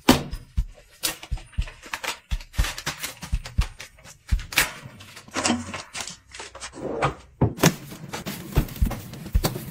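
Close handling sounds of packaging: an irregular run of sharp taps and clicks with short bursts of crinkling and rustling.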